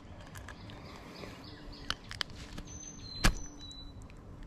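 A few sharp clicks and knocks over a quiet outdoor background, the loudest about three seconds in.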